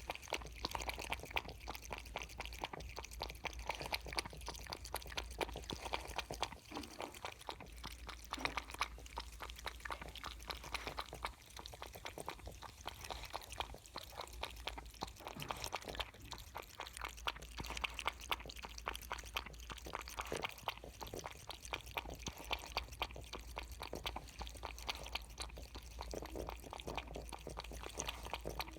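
Kitten lapping milk: rapid, continuous small wet clicks of the tongue in the liquid.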